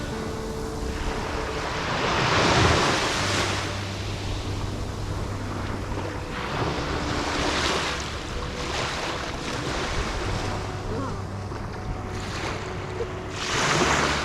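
Sea waves washing in and receding, the surf swelling about three times, with wind buffeting the microphone.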